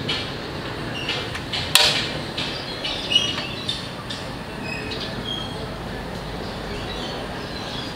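Bounce portable butane cartridge stove being lit: one sharp click of the igniter knob a little under two seconds in, then a few lighter clicks.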